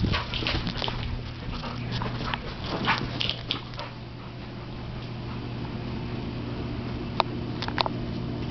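A dog whimpering in a few short high cries, mostly in the first few seconds, over a steady low hum.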